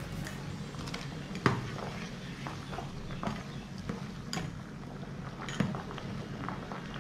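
Rice boiling hard in water in a stainless steel pot, a steady bubbling, while a steel spoon and slotted skimmer stir it and knock against the pot a few times. The loudest knock comes about one and a half seconds in, another near six seconds.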